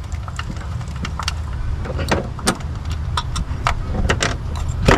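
Scattered sharp metallic clicks and taps of hand tools removing a spark plug and ignition coil in an engine bay, over a steady low rumble.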